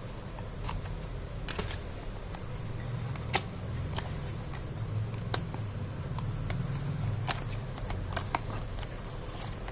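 Scattered clicks and taps of a small earbuds box and its packaging being handled and opened, with two sharper snaps a little past three seconds in and about two seconds later, over a low steady hum.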